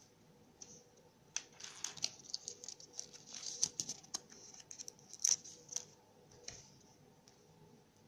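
A Kinder Surprise egg and its contents being handled: a run of crinkles and sharp clicks lasting about four seconds, the loudest click a little past five seconds in.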